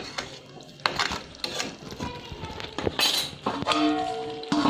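A metal spoon clinking and scraping against a cooking pot as thick mango-and-sugar mixture is stirred, in several separate knocks, with a short held tone near the end.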